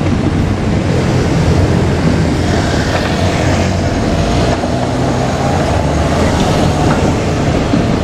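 JR Kyushu KiHa 200 diesel railcar moving over the depot tracks, its diesel engine running in a steady low drone, with a few knocks from the wheels crossing rail joints and points.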